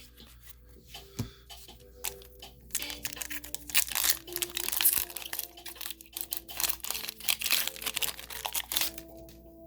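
Foil booster pack being torn open and crinkled by hand. The sound is a dense papery crinkle from about three seconds in until near the end, over soft background music.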